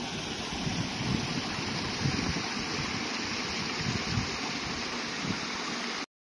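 Small mountain beck running over rocks, a steady rushing hiss, with wind buffeting the microphone in irregular low thumps. It all cuts off suddenly near the end.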